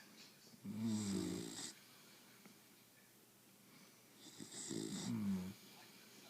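A sleeper snoring: two snores of about a second each, roughly three and a half seconds apart, each with a hiss high above the low snore tone.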